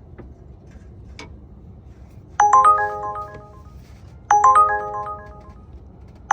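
Phone ringtone: a short chime melody of several quick notes that starts about two and a half seconds in and repeats every couple of seconds. A few faint clicks come before it.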